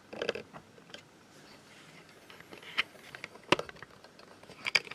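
Plastic packaging being handled: scattered crinkles and clicks, the sharpest about three and a half seconds in.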